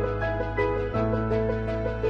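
Instrumental background music: sustained bass notes that change about every second and a half, under a repeating melody of short notes.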